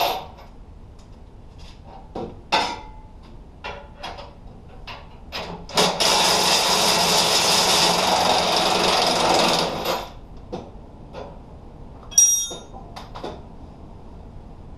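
A handheld power tool runs in a steady burst of about four seconds, with scattered knocks and clatter of tools on metal before and after it. A sharp ringing metal clink comes about two seconds after the tool stops.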